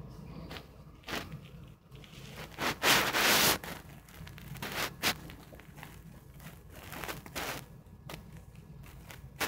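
Plastic licorice wrapper crinkling and rustling as a cat paws and tugs at it, in irregular short bursts with the loudest, longest crinkle about three seconds in.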